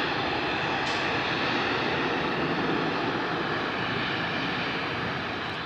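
Engines of a Boeing 737-800 at takeoff thrust as the jet climbs away: a steady jet engine noise, its two CFM56-7B turbofans, that tails off slightly near the end.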